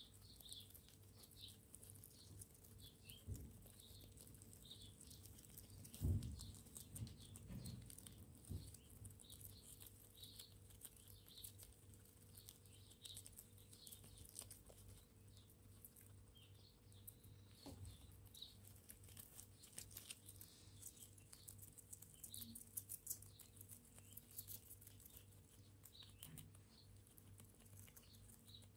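Two guinea pigs nibbling and chewing a leafy green: faint, rapid crisp clicks and crunches, with a single low thump about six seconds in.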